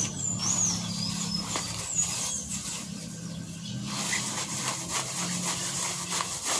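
Thin plastic carrier bag crinkling and rustling as it is handled and leafy greens are stuffed into it. Birds chirp a few times in the first couple of seconds.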